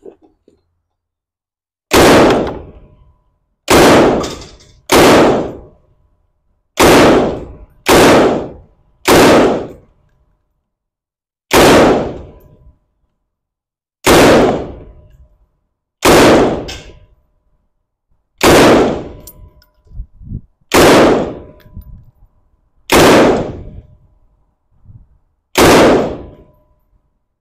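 Semi-automatic PKM belt-fed rifle in 7.62x54R fired single shots, about thirteen in all, at uneven gaps of one to two and a half seconds. Each shot is followed by a trailing echo of about a second.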